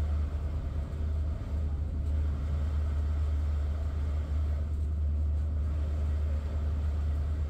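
Steady low drone of the Queen Beetle high-speed ferry under way at sea, heard inside the passenger cabin.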